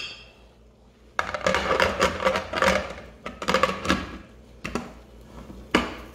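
Lid of a Nigro pressure cooker being set on the pot and turned to lock: a run of metal scraping and clattering, then a few separate clicks, the last a sharp clack near the end.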